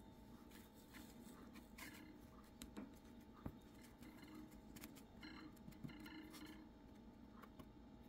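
Near silence: room tone with a few faint small ticks and soft scratches as a small plastic part is handled on a paper towel.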